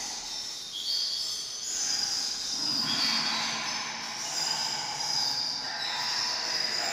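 A swarm of rats squeaking, many high-pitched squeals overlapping continuously.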